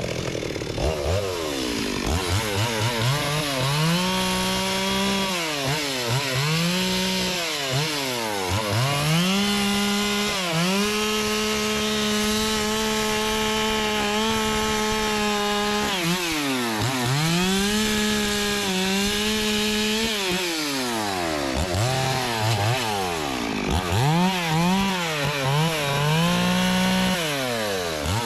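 Two-stroke chainsaw cutting teak wood, revved up and let back down again and again, and held at full speed for about six seconds in the middle.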